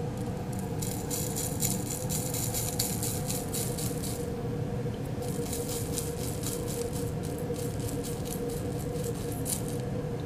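Powder being shaken out of a small plastic cup into a plastic cup on a lab balance: rapid rattling taps in two runs, the second starting about five seconds in. A steady low hum runs underneath.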